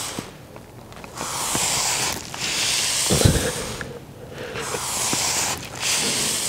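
Repeated hissing swishes, about one every one and a half seconds, from a person doing tuck-ins with their feet on a furniture slider, with a dull thump about three seconds in.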